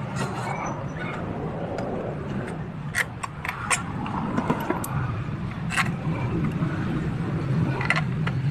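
Sharp metallic clinks and scrapes of hand tools on engine parts, a cluster of them about three seconds in and more later, over a steady low hum.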